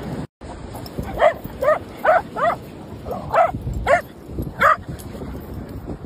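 A dog barking: seven short, sharp barks over about four seconds, in uneven groups.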